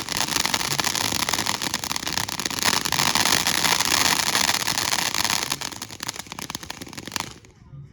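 A firework going off on the ground, hissing with rapid dense crackling. It cuts off suddenly about seven seconds in.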